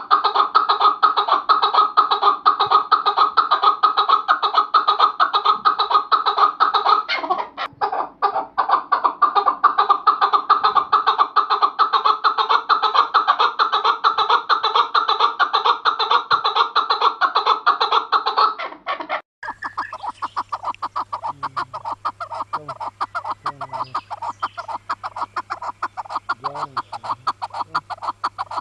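Chukar partridges calling: a fast, continuous run of repeated chuck notes. About two-thirds of the way through the calling cuts to a sparser, evenly paced series of chuck notes over a low steady hum.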